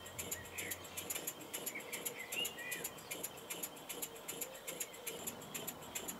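Wig-Wag triple inline model steam engine running, its valves and exhaust giving a rapid, even ticking. A few faint bird chirps sound in the background.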